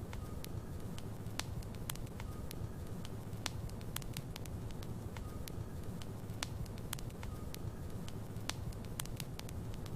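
Logs burning in a fireplace: a steady low rumble of flames with frequent sharp crackles and pops from the wood.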